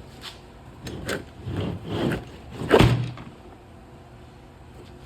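A tool set's case and tools being handled, giving a few knocks and clunks with rustling between them; the loudest clunk comes nearly three seconds in.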